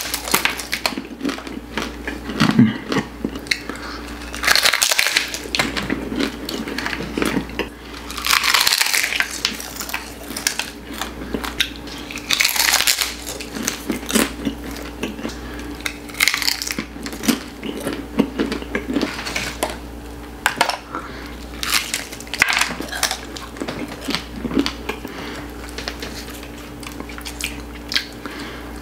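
Close-miked biting and chewing of fried bhatura bread, with irregular short crackles of bites and mouth sounds over a steady low hum.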